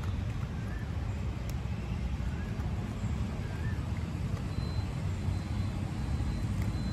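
Steady low outdoor rumble, like distant road traffic, with a few faint short high chirps.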